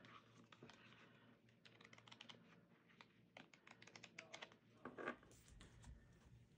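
Cardstock cards flicking one after another as a deck is thumbed through: quick runs of light, dry clicks. About five seconds in comes a louder scrape as the cards are swept out across a wooden surface.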